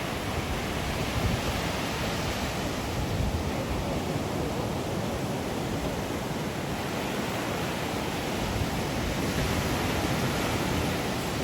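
Steady wash of ocean surf mixed with wind, an unbroken noise without distinct waves breaking or other events.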